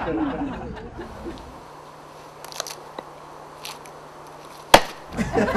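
A single axe blow striking a log on a chopping block: one sharp, loud crack about three-quarters of the way in, after a quiet stretch with a few faint clicks. A voice trails off at the very start.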